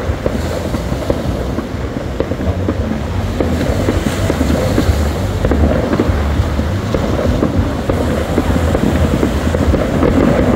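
Fireworks display going off across the water, a dense run of irregular pops and crackles, with wind rumbling on the microphone.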